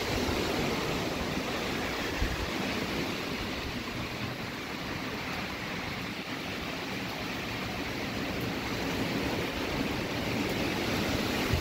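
Storm wind gusting hard through large trees: a steady rushing roar with low rumbling from the wind, easing a little midway and building again near the end.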